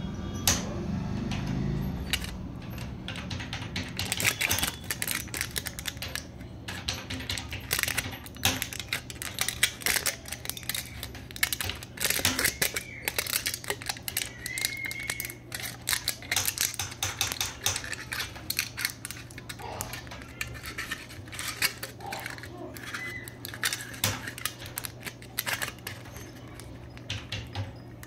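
Aluminium foil crinkling and crackling in irregular clicks as fingers press and rub it over a coin, over a steady low hum.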